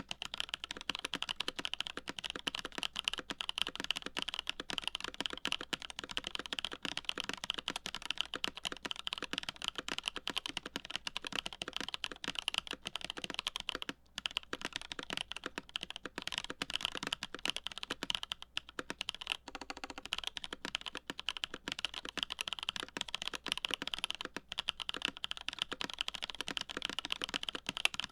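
Fast, continuous typing on a CA66 mechanical keyboard with lubed Holy Boba tactile switches, a full aluminium plate and GMK keycaps: a dense run of keystroke clicks and clacks, with brief pauses about halfway through and again a few seconds later.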